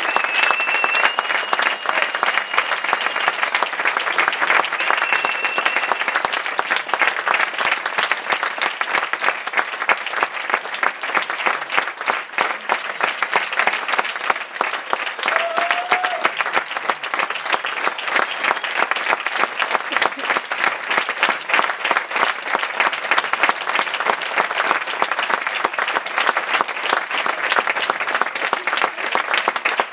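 Audience applauding steadily, dense continuous clapping, with a high whistle held through the first few seconds and again about five seconds in.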